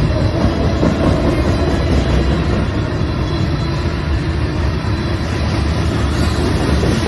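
Train rolling past close by: a steady, loud rumble and rattle of wheels on the rails.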